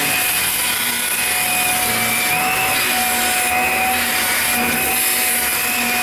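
Shark Rocket Professional stick vacuum running while pushed over carpet: a steady motor whine with a high, even tone over the rush of air.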